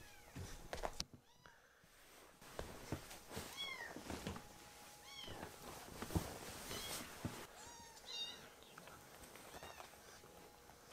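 Very young kittens giving a series of short, high-pitched meows, one every second or two: hungry cries begging for milk. Fabric rustles and soft knocks of handling come between them.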